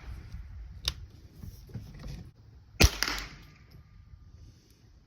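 Handling clicks from a Ruger 10/22 rifle and its magazine: a sharp click about a second in, then a loud snap near three seconds with a short ring, and faint handling noise after.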